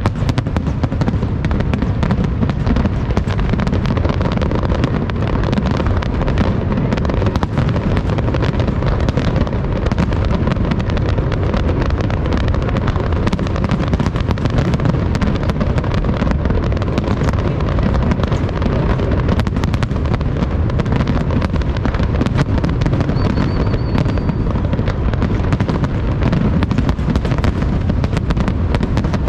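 Fireworks and firecrackers going off in a dense, continuous barrage: rapid crackling and popping over a low rumble, with no pause.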